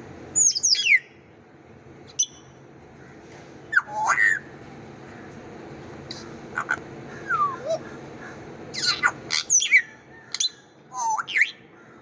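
African grey parrot giving a string of short whistles and squawks, many of them sliding quickly up or down in pitch, in separate bursts every second or two.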